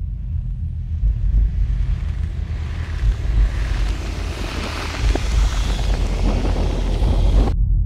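Sound effects for an animated logo intro: a low throbbing rumble under a rushing whoosh that swells over several seconds, with scattered crackles near its peak, then cuts off suddenly near the end.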